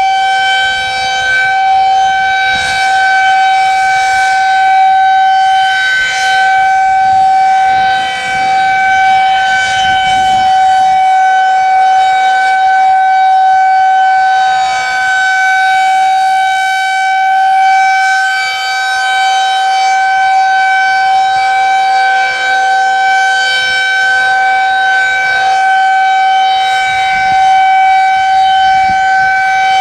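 Federal Signal 2001-130 rotating outdoor warning siren sounding a steady tone at full speed, held at one high pitch without rising or falling. Its loudness swells and fades gently every few seconds as the rotating head sweeps past.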